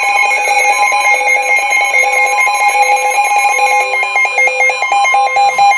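NOAA weather radio warning alarm: a steady 1050 Hz alert tone with several weather radios' own beeping alert tones sounding over it at once. The tones cut off just before the end.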